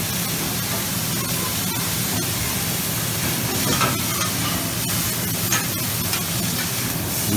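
Meat and vegetables sizzling on a Mongolian barbecue flat-top griddle, with metal spatulas scraping and tapping the steel as the cook stirs and turns the food. A steady low hum runs underneath.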